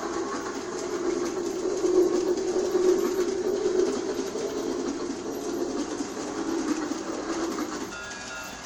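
Battery-powered G scale toy train (New Bright Railking) running on its track, a steady whirring rumble of motor and wheels that grows louder as it passes close, then fades. Near the end a series of pitched electronic tones starts.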